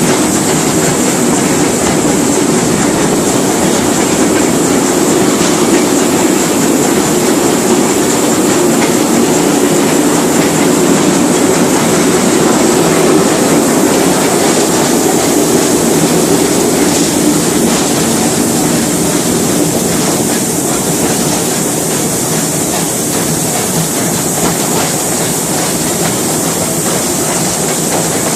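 Narrow-gauge train running along the track: a steady rumble and rattle of the wheels on the rails, with a steady high-pitched whine above it.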